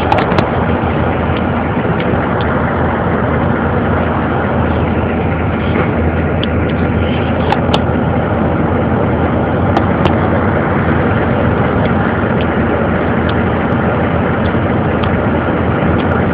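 Steady engine and road noise heard from inside a city bus, with a few small clicks and rattles.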